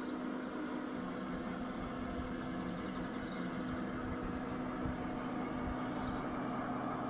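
G-scale model diesel railbuses and locomotives giving out their onboard engine sound, a steady diesel idling drone with a constant low hum.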